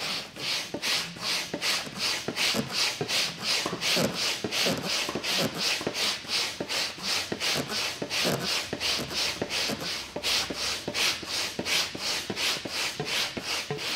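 A manual pump, worked in vacuum mode, drawing the last air out of an inflatable mattress base: an even rhythm of airy rushing strokes, about three a second.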